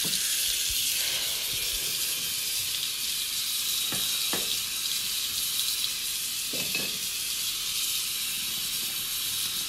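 Water running steadily from a bathroom sink faucet into the basin, a constant hiss.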